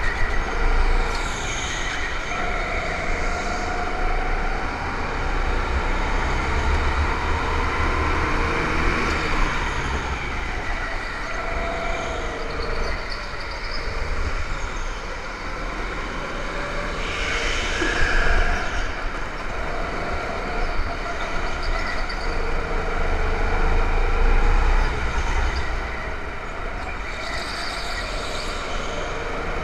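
Go-kart engines running on a track, their pitch rising and falling, over a steady low rumble.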